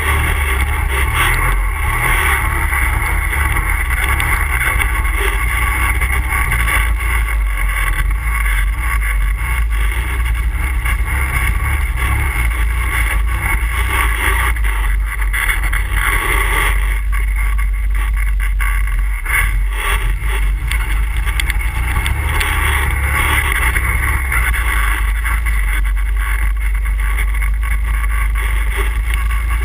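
ATV engine running continuously as the quad is ridden. The engine note drops back for a few seconds a little past the middle, then picks up again.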